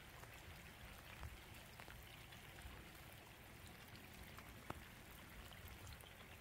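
Near silence: faint outdoor ambience with a low, uneven rumble and a few soft ticks.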